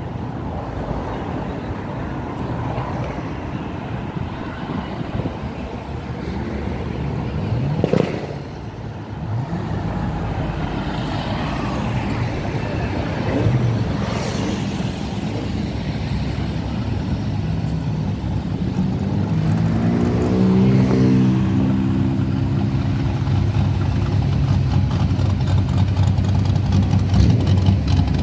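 Engines of a line of classic cars running as they approach and pass, louder toward the end as the cars draw near. One engine's pitch rises about twenty seconds in, and there is a single sharp knock about eight seconds in.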